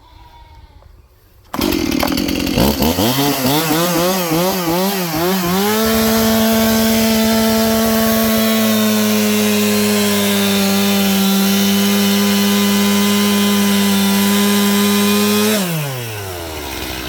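Gasoline chainsaw with a freshly sharpened chain comes in suddenly and revs up and down a few times. It is then held at full throttle, steady for about ten seconds, while cutting a log into firewood lengths, and drops back toward idle near the end.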